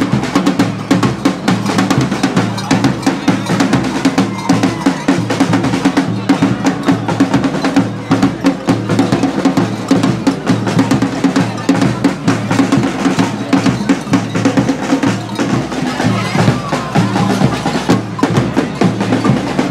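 Drum band playing a continuous loud beat on bass and snare drums.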